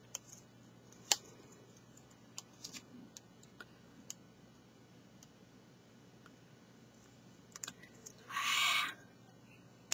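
Fingernails picking at the paper backing of a double-sided sticky strip, making scattered faint clicks and ticks. Near the end comes a short papery rasp, louder than the clicks, as the backing comes away or is handled.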